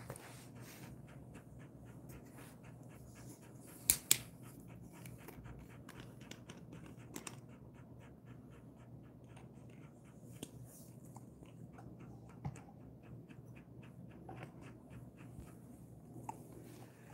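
Jindo-mix dog panting steadily and softly, about four breaths a second. Two sharp clicks come close together about four seconds in.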